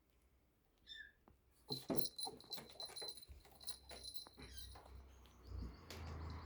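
A kitten's short high-pitched mew about a second in, followed by a run of small clicks and scuffling knocks.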